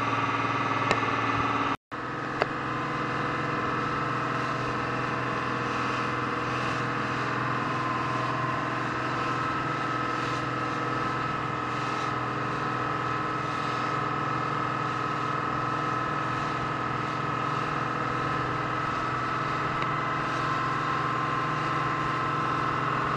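Motorboat engine running steadily at cruising speed, with water rushing past the hull and wake. The sound drops out for an instant about two seconds in, then carries on unchanged.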